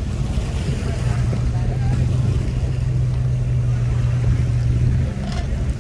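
An engine running steadily at one pitch, dropping away about five seconds in.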